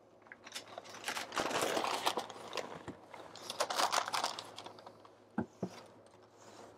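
Pink butcher paper crinkling and rustling as it is unwrapped and pulled away from a smoked brisket, followed by two short soft thumps a little past the middle.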